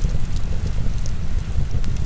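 Heavy rain as a dense, steady rushing with a deep rumble, and a wood fire crackling over it with several sharp pops.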